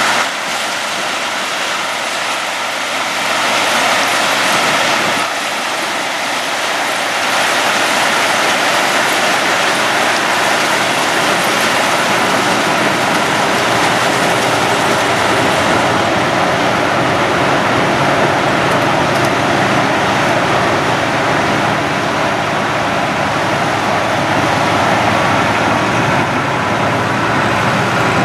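Sugarcane harvesting machinery running with a steady, loud mechanical noise that grows louder about seven seconds in.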